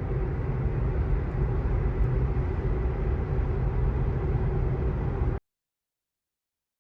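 Steady road, tyre and wind noise inside an electric car's cabin (a 2024 Tesla Model 3) at freeway speed. It cuts off suddenly a little after five seconds in, leaving dead silence.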